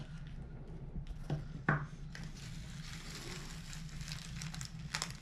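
Plastic bubble-wrap packaging crinkling as it is handled, starting about two seconds in, after a couple of small knocks, over a low steady hum.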